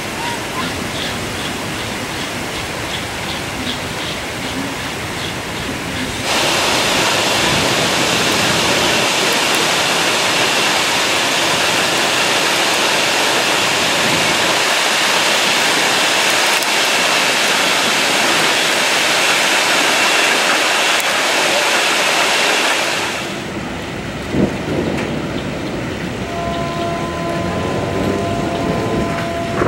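Torrential rain pouring down, a dense steady hiss that grows much louder about six seconds in and drops back about twenty-three seconds in. Near the end, two steady tones and faint voices sound over the rain.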